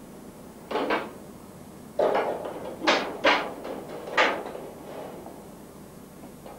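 About five knocks and clatters against metal rabbit restraining yokes as rabbits are handled and settled into them, each fading quickly.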